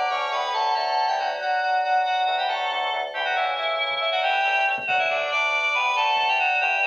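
Panasonic KX-TG8301JT cordless phone playing a ringtone: an electronic melody of several notes sounding together, changing every fraction of a second, with almost no bass.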